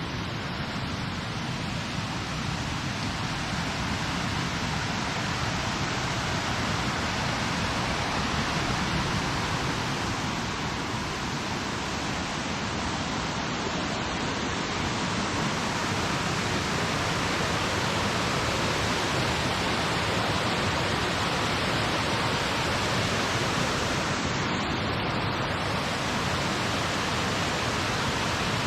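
Fast-flowing water of the Cross River rushing steadily, an even, unbroken wash of sound.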